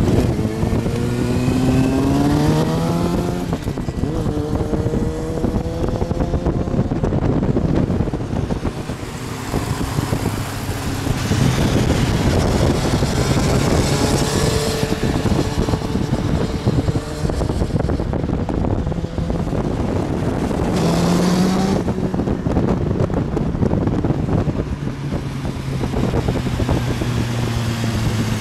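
Sportbike engines revving and accelerating past, the pitch climbing through the gears several times over steady engine and road noise.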